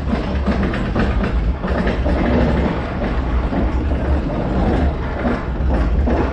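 Arrow Dynamics steel roller coaster train running on its track, a steady low rumble of wheels and structure with rapid clacking from the track.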